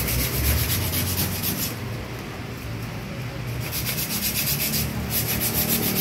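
Quick, rhythmic back-and-forth sanding strokes wearing down a thick textured coating by hand so the part will slide on. The strokes ease off for about two seconds near the middle, then pick up again.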